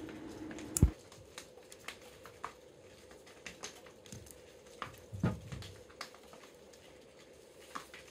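Hand work on electrical wiring: scattered small clicks, crinkles and rustles of wire and tools being handled, with a loud knock just under a second in and a duller thud about five seconds in.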